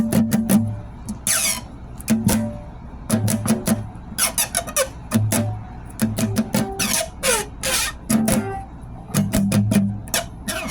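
A guitar played in short bursts of plucked and strummed notes with gaps between them, with squeaky sliding notes that fall in pitch.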